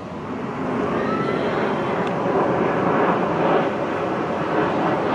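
Jet aircraft passing overhead, its engine noise swelling over about the first second and then holding loud.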